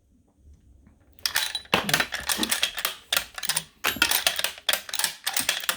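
Rapid metallic clicking and clatter of .30-06 cartridges being handled and loaded into a bolt-action rifle's magazine and chamber, starting about a second in after a short quiet.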